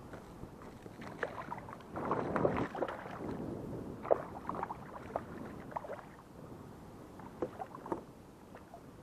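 Water splashing as a hooked queenfish drops back and thrashes beside a plastic sit-on-top kayak, with a scatter of sharp knocks and clicks on the hull; the loudest is a sharp knock about four seconds in.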